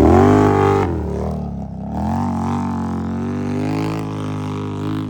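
ATV engine running, its pitch dropping over the first second as the revs fall, then holding fairly steady with slight wavering.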